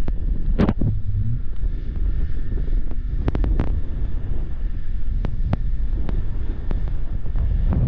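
Wind buffeting the microphone over the low rumble of a jet ski running across choppy sea, with scattered sharp ticks.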